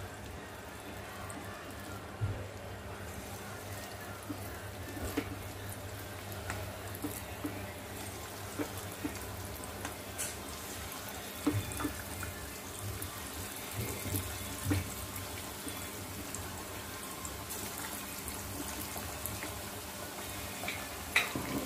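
Green-marinated chicken pieces deep-frying in hot oil in a kadhai: a steady sizzle and bubbling, with scattered light clicks and knocks as pieces are slid in and the pan is touched.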